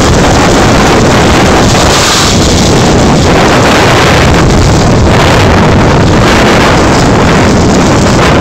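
Loud, steady wind buffeting the phone's microphone.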